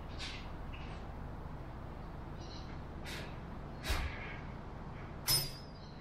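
A few short knocks and scrapes of wooden aircraft parts being handled and fitted together, over a steady low hum. The sharpest knock comes near the end.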